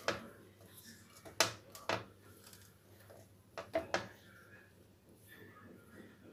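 A hand working ghee into crumbly flour in a glass bowl, squeezing the mix to see if it holds together, with several sharp knocks of the hand against the glass: the loudest about a second and a half in, and a quick group of three near four seconds in.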